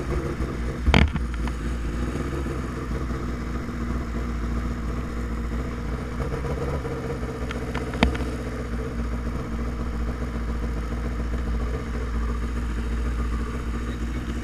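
Drag-racing motorcycle's engine running steadily at low speed. Two sharp knocks sound over it, about a second in and about eight seconds in.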